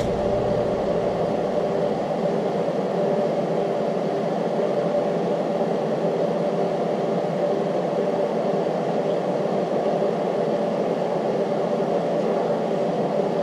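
Steady whirring hum of a running machine, with a few constant tones in it.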